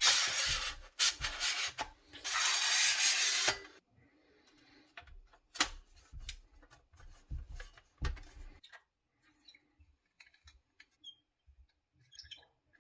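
Rubbing and rasping noise from things being handled, in two loud stretches over the first few seconds. Then scattered light clicks and knocks that die away about two-thirds of the way through.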